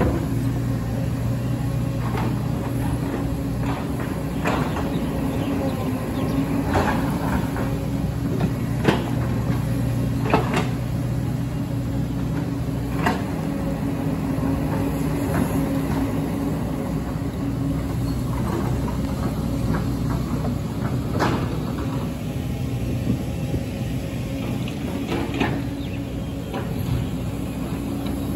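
Hydraulic excavator's diesel engine running steadily, with the bucket knocking and scraping against rocks and landslide debris a number of times.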